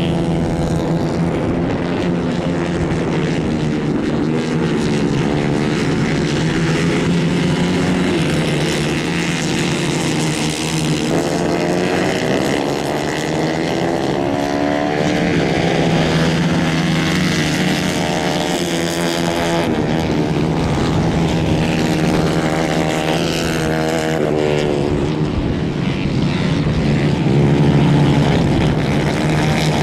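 Engines of several 150 Kayak class racing karts, revving up and down as they race past, with a few different engine pitches overlapping. It is loudest near the end, as one kart passes close.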